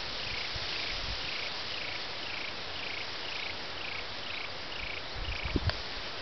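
An animal chirping steadily, a short falling note repeated about twice a second, over a steady high hiss of insects; the chirping stops about five seconds in, and a few low thumps follow near the end.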